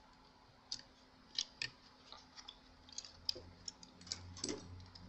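Scattered light clicks and taps of small laptop parts, a cooling fan and a cabled I/O board, being handled and set down on a work mat. A faint low hum joins about three seconds in.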